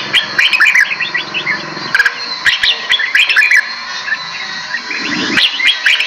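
Small songbirds in an aviary chirping and twittering in quick clusters of short, high notes, with a lull in the middle and a fresh burst near the end.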